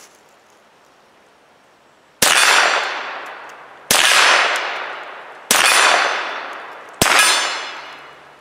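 Four shots from a Mossberg Blaze .22 LR rifle, about a second and a half apart, each followed by a long ringing clang of a struck steel target that fades slowly.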